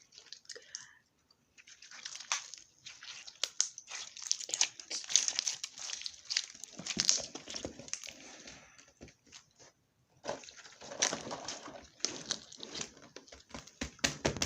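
Slime being squished and stretched by hand, giving runs of wet crackling and popping clicks that pause briefly about a second in and again around nine seconds in.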